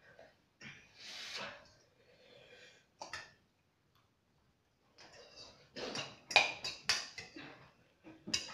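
Eating noises at a table: a cluster of sharp clicks and short scrapes from forks and spoons against ceramic bowls, with a breathy puff about a second in.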